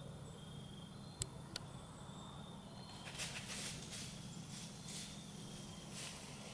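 Faint woodland quiet with a steady insect trill, two sharp clicks about a second in, then irregular rustling in dry leaves from about halfway.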